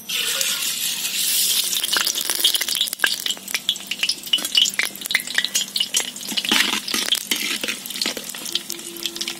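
Mustard seeds hitting hot oil in an iron kadai. A hiss starts suddenly as they go in, then many sharp pops and crackles as the seeds begin to splutter, the sign that the oil is hot enough for tempering.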